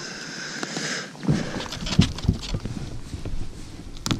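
Irregular thumps and knocks of a freshly landed flathead being lifted aboard and handled on the boat's carpeted deck, with a louder pair of knocks near the end.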